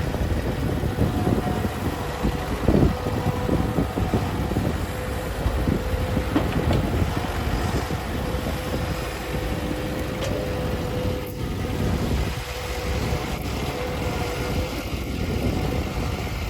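Heavy diesel machinery engine running steadily, a dense low rumble with a steady whine held above it.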